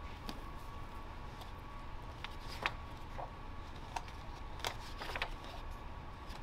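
Pages of a hardcover picture book being opened and turned: a few short paper rustles and flicks, one about two and a half seconds in and several more between about four and five seconds, over a faint steady hum.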